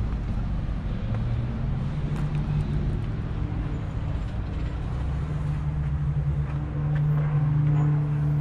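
A vehicle engine idling steadily, a low even hum that grows louder near the end.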